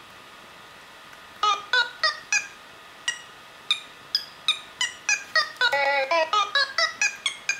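Short pitched notes from a movie-clip sampler synth, each a snippet of a man's singing voice retuned to a keyboard note. They begin about a second and a half in, one at a time with quick decays, then come faster and overlap near the end.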